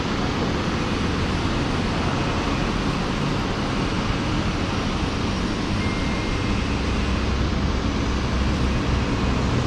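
Curry puff (karipap) making machine and its air compressor running, a steady mechanical hum with hiss. A deeper hum grows louder near the end.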